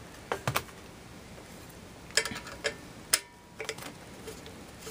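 Irregular light metallic clicks and clinks as an ice shaver's steel blade is worked loose from its steel blade holder with a screwdriver, some briefly ringing. The sharpest click comes a little past halfway.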